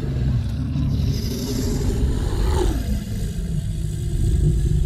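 Movie basilisk sound effect: a deep, continuous rumble, with a hiss about a second in and a falling glide near three seconds.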